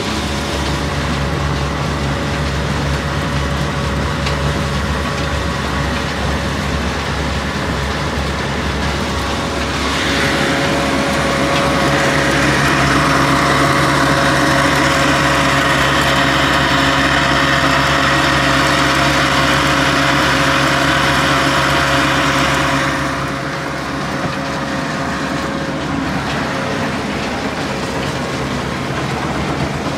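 1950 Ruston Hornsby 35 HP diesel engine running steadily and driving belt-driven grain mill machinery, a low even drone throughout. From about ten seconds in to about twenty-three seconds a louder rushing hiss rises over it as grain streams through the mill.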